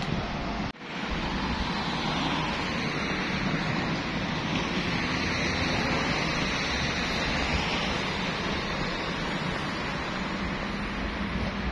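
Steady rushing noise of city street traffic, an even wash with no distinct events; it drops out briefly about a second in.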